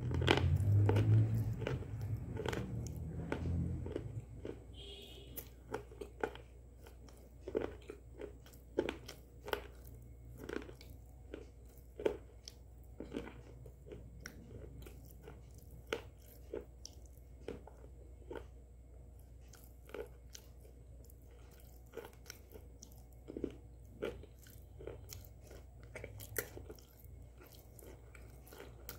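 A person biting and chewing something crunchy close to the microphone, with sharp crunches coming every half second to a second. A louder, muffled low rumble runs through the first four seconds.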